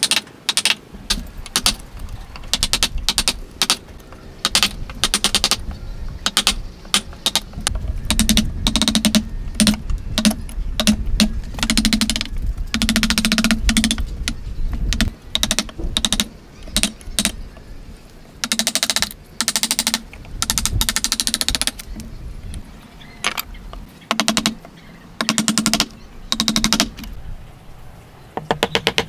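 Wooden mallet striking a chisel being driven into hardwood, in quick runs of sharp taps with short pauses between them.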